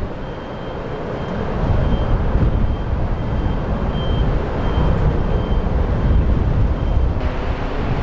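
Wind buffeting the microphone in gusts, a heavy fluctuating rumble, with a faint steady high whine held through most of it that cuts off about seven seconds in.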